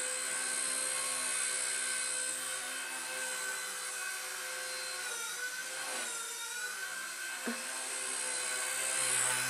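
Blade mCP X micro collective-pitch RC helicopter in flight: a steady high-pitched motor and rotor whine that dips in pitch and recovers about five to six and a half seconds in. A single brief click comes about seven and a half seconds in.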